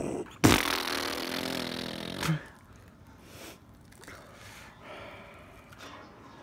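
Adhesive temporary-tattoo applicator being peeled off the skin of a wrist: a sudden ripping sound about half a second in that goes on for nearly two seconds, then a few faint rustles of handling.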